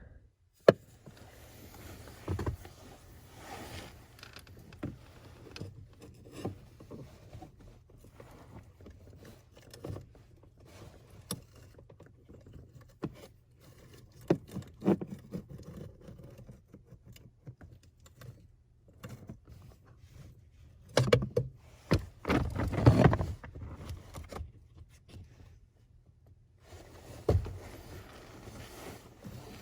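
Scattered clicks, scrapes and knocks of hand tools on the metal parts of a Silverado 2500HD parking brake assembly: vice grips pulling down the cable spring and a screwdriver worked through a hole to hold the cable slack. A louder run of scraping and knocking comes a little past two-thirds of the way through.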